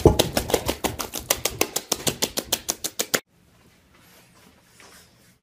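Loud, fast open-mouthed chewing and lip smacking, about eight wet smacks a second, that stops abruptly about three seconds in. Only faint room sound follows.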